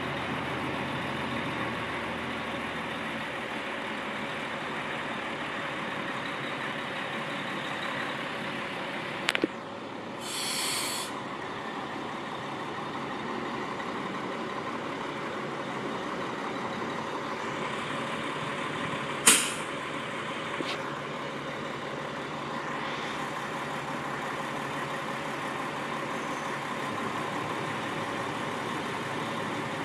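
Diesel semi truck's engine running steadily. About a third of the way in there is a click and a short hiss of released air. About two-thirds through comes a sharp air-brake pop, the loudest sound, followed by a smaller click.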